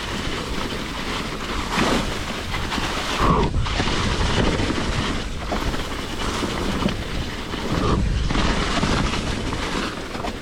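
Hardtail mountain bike ridden down a leaf-covered dirt trail: wind noise on the microphone over tyre and trail noise, with heavier jolts about three and eight seconds in.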